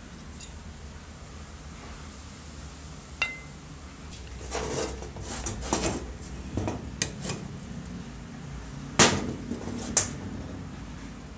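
Metal parts of an old circular saw clanking and scraping as it is taken apart by hand: a single light click with a short metallic ring about three seconds in, a run of rattles and scrapes in the middle, then two sharp knocks about a second apart near the end as the housing comes apart and the armature is pulled out.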